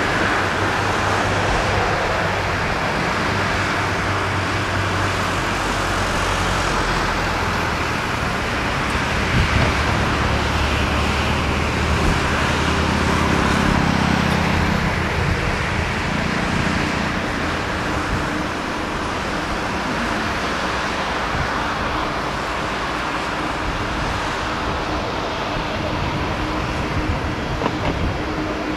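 Jet engines of a Boeing 777-300, Rolls-Royce Trent 800s, running at taxi thrust as the airliner taxis: a steady, even jet noise. A deeper hum builds about a third of the way in and fades again about halfway through.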